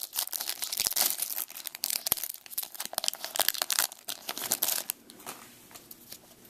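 Foil wrapper of a Topps baseball card pack crinkling and tearing as it is opened by hand. The dense crackle dies down about five seconds in.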